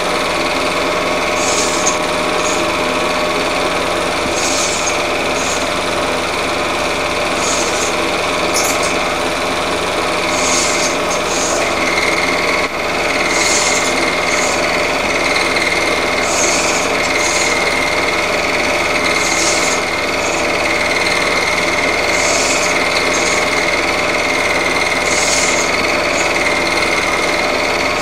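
Cine film projector running: a steady mechanical whir from the motor and film transport, with a brief high chirp about every three seconds.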